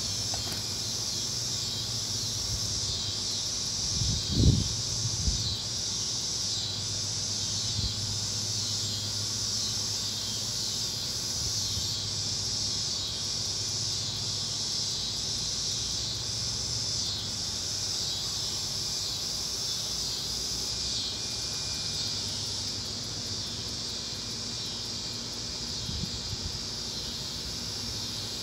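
Summer insects chirring in a steady high-pitched chorus that pulses about once a second, with a faint low hum underneath. A couple of dull bumps come about four seconds in.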